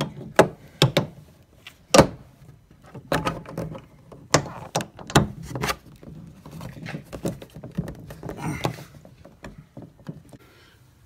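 Plastic interior trim of a Lexus back door being pushed and snapped into place by hand. A string of sharp clicks and knocks, the loudest about two seconds in, gives way to plastic rubbing and rustling against the door panel, which dies away near the end.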